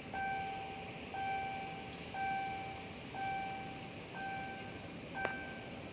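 Railway level-crossing warning signal sounding: an electronic tone repeating about once a second, over a steady background hiss. A single sharp click about five seconds in.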